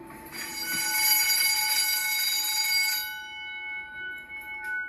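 Fire alarm bell ringing, loud for about two and a half seconds, then quieter from about three seconds in with its tone ringing on.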